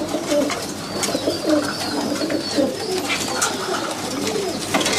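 Domestic pigeons cooing, many low wavering coos overlapping.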